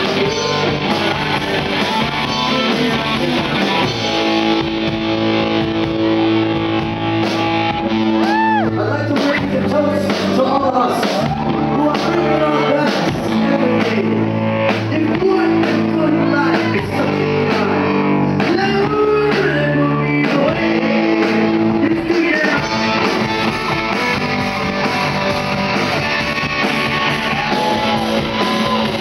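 Live rock band playing: a singer over guitar, bass guitar and a drum kit.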